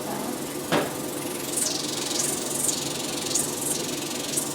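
Injection treatment handpiece of a multifunction facial machine running in its first mode: a click just under a second in, then a high hiss that repeatedly swells and fades over a low steady hum.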